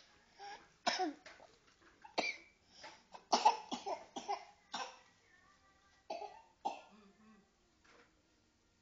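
A young child coughing repeatedly while drinking, a run of short, harsh coughs that stops about seven seconds in.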